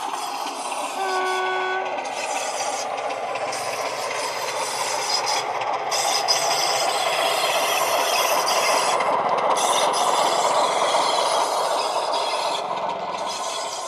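Recorded Class 25 diesel engine sound played by the model locomotive's DCC sound decoder through a passive radiator speaker, growing louder as the model approaches and passes, with a short horn note about a second in.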